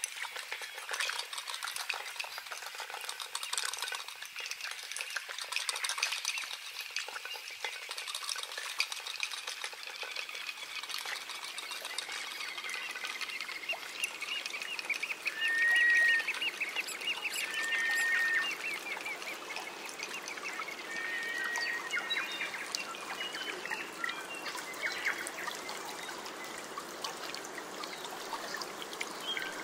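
Water trickling and crackling steadily, with a bird calling a few short, clear notes around the middle.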